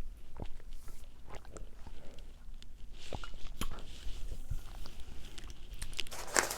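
Close-miked eating sounds: scattered wet mouth clicks and chewing.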